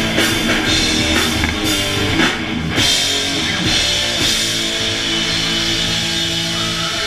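Thrash metal band playing live with distorted electric guitars and a drum kit: fast, evenly spaced cymbal and drum hits for the first two and a half seconds or so, then held guitar chords left ringing out, the music easing slightly toward the end.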